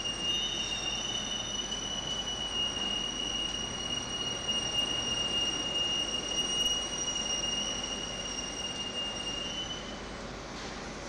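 Industrial centrifugal blower fan running: a steady roar with a high-pitched whine on top. The whine drops out near the end.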